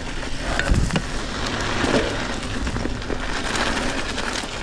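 Trek Fuel EX 7 mountain bike rolling fast down sandy singletrack: a steady rushing noise of tyres and wind, dotted with many small clicks and knocks from the bike rattling over the rough ground.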